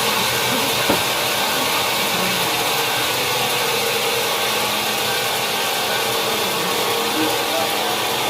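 Sawmill machinery running steadily: a constant hiss with a steady hum, and a single short knock about a second in.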